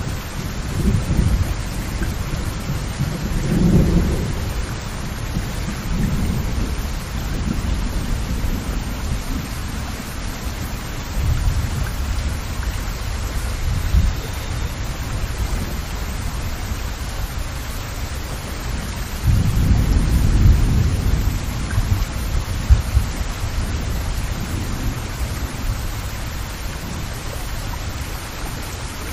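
Heavy rain falling steadily on standing water and wet ground. Low rumbles swell up several times, the longest about twenty seconds in.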